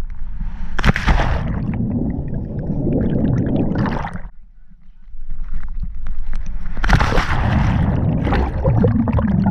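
Water sloshing and gurgling right at the microphone in two long bursts, each opening with a sharp splash, with a low rumble underneath.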